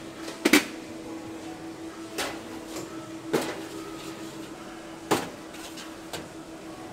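Metal baking sheets clanking against the rails of a commercial oven as trays are slid in. There are about five sharp knocks, the loudest a double clank about half a second in, over a steady hum.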